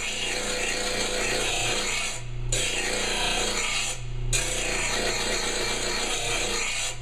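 Blade grinder's abrasive wheel grinding the steel face of a Honda lawn mower blade: a steady rasping hiss over the grinder motor's hum, broken twice briefly, about two and four seconds in, as the blade comes off the wheel. Metal is being ground off the blade's heavy side to balance it.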